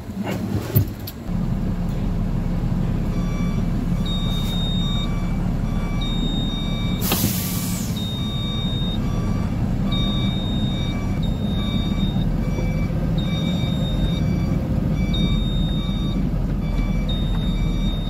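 A heavy truck's diesel engine starts about a second in and runs at idle. About three seconds in, a reversing alarm begins beeping at an even pace. About seven seconds in there is one sharp hiss of air from the air brakes being released.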